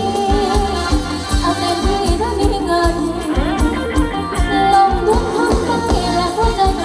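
Live Thai ram wong folk band music: a singer's bending melody over a steady drum beat with tambourine.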